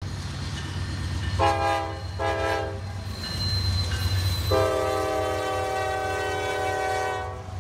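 A locomotive's multi-note chime sounds two short blasts and then one long blast over a steady low rumble.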